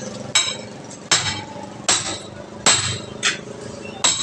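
Hammer blows on a steel tyre iron wedged between the tyre bead and the steel wheel rim, prising the tyre off the rim for a puncture repair. There are about six sharp, ringing metallic strikes, roughly one every three-quarters of a second, one of them lighter.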